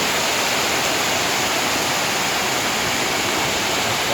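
Heavy rain driven by strong wind, a steady dense rush of noise during a whirlwind storm.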